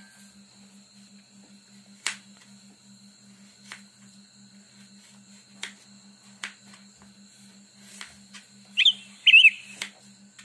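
Kitchen knife cutting raw peeled potato on a plastic cutting board: about six sharp knocks as the blade strikes the board. A little before the end, two loud high chirps with bending pitch, half a second apart, stand out as the loudest sound. A faint steady pulsing hum runs underneath.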